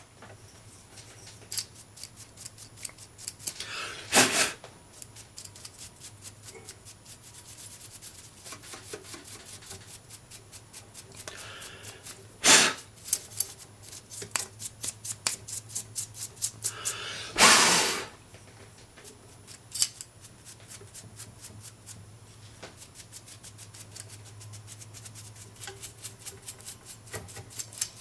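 Rapid, repeated scrubbing and scraping strokes as old grime is cleaned off a vintage record changer's idler wheel and motor parts. A few louder short rushes of noise break in, the longest near two-thirds of the way through.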